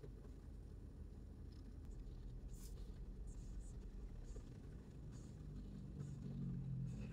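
Low, steady rumble of a car heard from inside the cabin in slow traffic, with faint scattered clicks and ticks. A low hum grows louder near the end.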